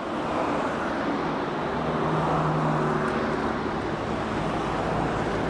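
A road vehicle's engine running amid steady road noise, with a low, even engine hum coming in about two seconds in.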